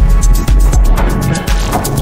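Background music with a heavy bass and a steady beat of about four ticks a second.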